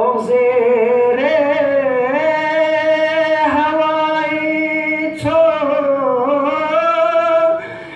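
A male voice singing a Balti devotional qasida in long held notes with a wavering vibrato, pausing for breath about three and a half and five seconds in.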